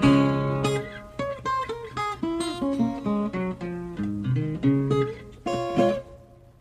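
Acoustic guitar picking the closing instrumental lines of a recorded blues song, separate plucked notes, then a final chord about five and a half seconds in that rings out and fades to nothing.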